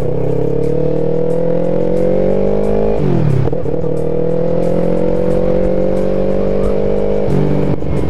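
Yamaha YZF-R3's 321 cc parallel-twin engine, breathing through a Two Brothers full-system exhaust, accelerating through the gears. The revs climb, fall at an upshift about three seconds in, then climb again more slowly and fall at a second upshift near the end.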